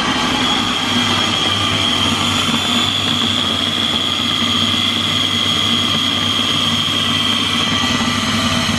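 A Philips Comfort blender's motor unit runs steadily on its chopper bowl, puréeing cooked chickpeas into hummus. It holds a constant high whine throughout.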